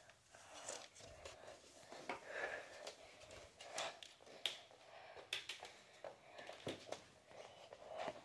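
Faint scattered clicks, light taps and rustling of objects being handled.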